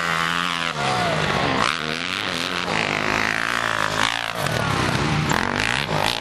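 Dirt bike engines revving hard, pitch dropping and climbing again with throttle and gear changes as the bikes pass.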